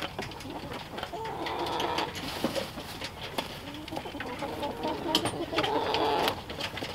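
Chickens clucking in a coop, with two longer drawn-out calls about a second and a half in and again near the end, and scattered short clicks.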